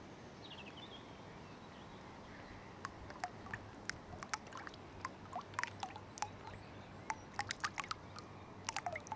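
Small baits scattered by hand dropping into still water, a quick irregular run of small plops, several ending in a short falling 'bloop'. It begins about three seconds in.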